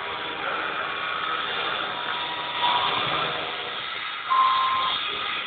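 AM3040 mini CNC router's 800 W water-cooled spindle milling a metal block with a small end mill: a steady cutting noise with a faint whine, and a louder, sharper tone for about half a second around four seconds in.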